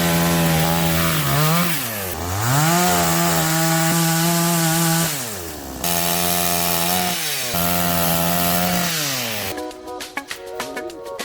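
Gasoline chainsaw running at high revs. It drops briefly and winds back up about two seconds in, eases down about five seconds in, then runs high again with another short dip. Music takes over in the last couple of seconds.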